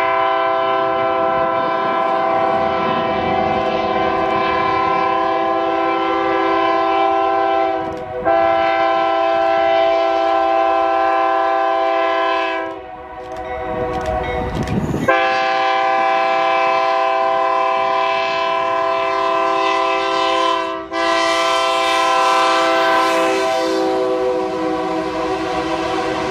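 Train horn sounding a held chord of several notes in long blasts of several seconds each, four in a row with short breaks between them. In the longer break, partway through, the rumble of the train rises before the horn returns.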